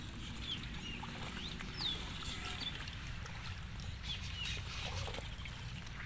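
Scattered short, high chirps of small birds, a few each second, over a low steady rumble.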